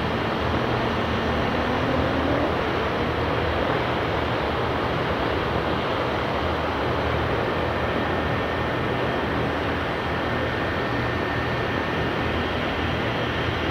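Tupolev Tu-95MS bomber's Kuznetsov NK-12 turboprop engines starting up, with the contra-rotating propellers turning slowly. It is a steady, loud drone with a low hum and a high whine, and a brief rising tone about two seconds in.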